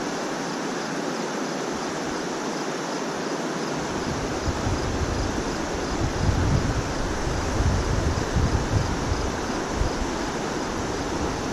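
Steady rushing of river water, with wind buffeting the microphone from about four seconds in.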